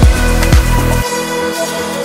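Electronic background music with a steady beat of about two kick-drum thumps a second. About halfway through, the drums and bass drop out, leaving held synth tones.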